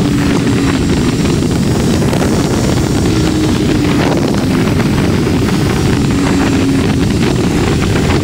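Motorcycle riding at road speed: a steady rush of wind noise over the drone of a Triumph Tiger 1200 Rally Pro's three-cylinder engine, whose note drifts a little in pitch.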